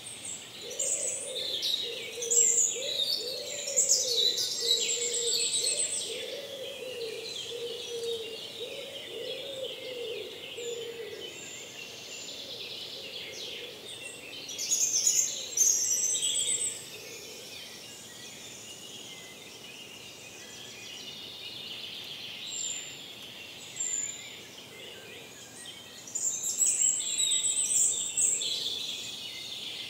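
Woodland songbirds singing in the morning chorus, several songs and high trills overlapping, with louder phrases in bursts. A lower, wavering repeated call from another bird sounds under them for the first ten seconds or so.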